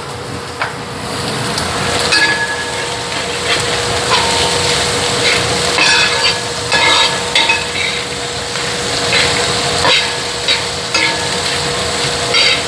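Sliced onions and chillies sizzling as they fry in coconut oil in a pan, with a spatula stirring and scraping against the pan every second or two. A steady hum runs underneath.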